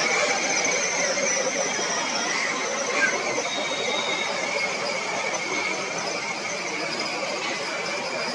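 A crowd of school children making noise together, their many voices blending into a steady din.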